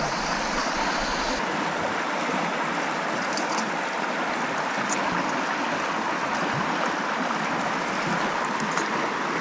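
A river running high with spring meltwater and rain gives a steady rushing wash of water. A few faint clicks sound over it.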